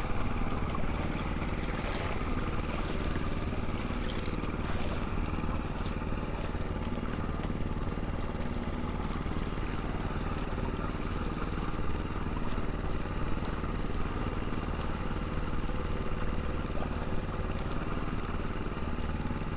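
Small boat's engine running steadily, with water sloshing and occasional light splashes and ticks.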